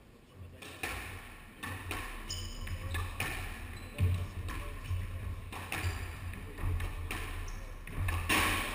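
Squash rally: the ball striking rackets and the court walls about once a second, with a few short sneaker squeaks on the wooden floor.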